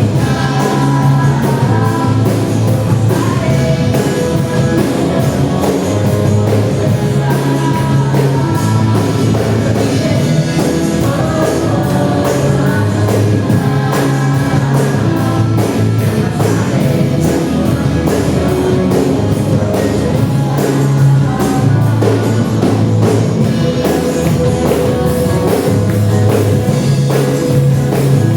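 Gospel worship band playing a rock-style song with drum kit, guitar and bass at a steady beat, with singing.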